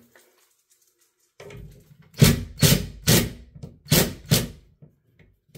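Cordless drill driving a drywall screw into a ceiling patch in several short trigger bursts, about five in quick succession, easing the screw head just below the surface of the drywall paper.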